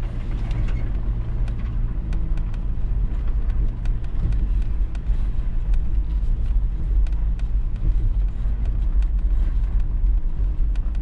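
Toyota 4Runner driving slowly over rough, rocky trail, its engine running low and steady, with scattered clicks and knocks from the tyres and body jolting over the uneven ground.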